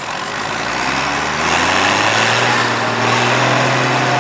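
Fendt tractor's diesel engine revving up under load at the start of a pull, its pitch rising over the first couple of seconds and then held at high revs.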